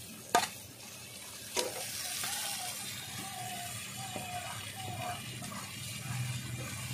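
Chopped brahmi leaves tipped from an aluminium plate into a hot kadai of prawns frying in oil: a sharp metal clank about half a second in and another about a second and a half in, then a steady hiss of sizzling oil as the leaves are swept off the plate.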